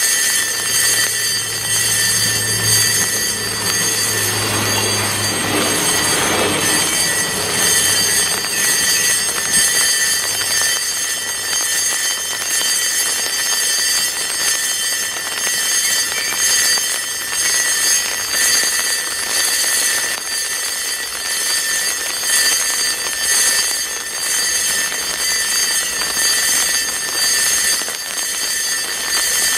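Level-crossing warning bell ringing continuously, the electric bell of a German flashing-light crossing, sounding while the crossing is activated for an approaching train. A low hum under it swells about five to seven seconds in and dies away after about eight seconds.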